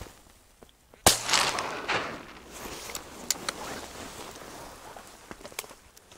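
A single loud shotgun shot about a second in, fired at a duck on the water, followed by quieter rustling and a few faint clicks.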